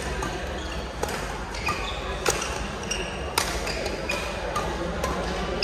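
Badminton rally: sharp racket-on-shuttlecock hits about once a second, with short squeaks of court shoes on the hall floor over steady background chatter.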